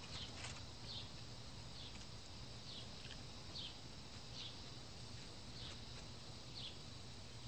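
A small bird calling over and over, a short high chirp that falls in pitch, about once a second, over faint steady background noise.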